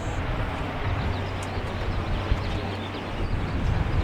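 Steady outdoor background noise: a continuous low rumble with an even hiss over it, with no distinct events.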